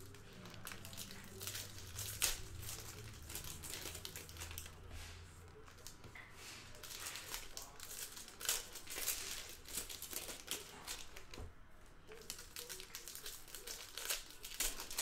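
Foil wrappers of Panini Mosaic football card packs crinkling and tearing as they are opened by hand, in irregular crackles with a couple of louder snaps about two seconds in and past the halfway mark.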